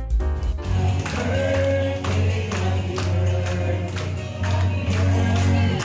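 Background music with a steady beat, bass and singing voices.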